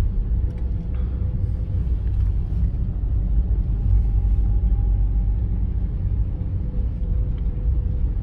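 Steady low rumble of a car's engine and tyres heard from inside the cabin as the car drives slowly down a concrete parking-garage ramp.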